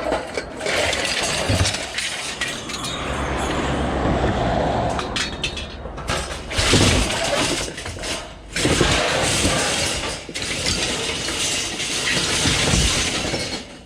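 Pieces of scrap metal clinking and clattering as they are handled and gathered up, over a steady rushing noise.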